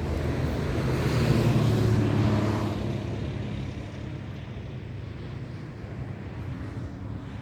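A motor vehicle driving past on the road, its engine and tyre noise loudest about two seconds in and then fading away.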